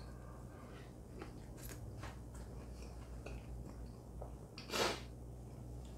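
A man biting into and chewing a southern-fried coated haggis, neeps and tatties patty: quiet mouth sounds with small crisp clicks. A short, louder burst of noise about five seconds in.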